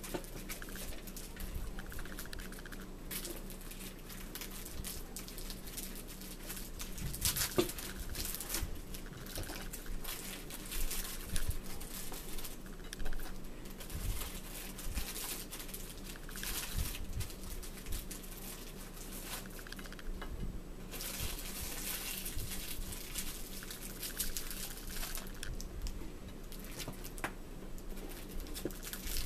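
Crinkling and rustling of a cellophane snack-cracker wrapper being handled and opened, with scattered small clicks and taps at the table.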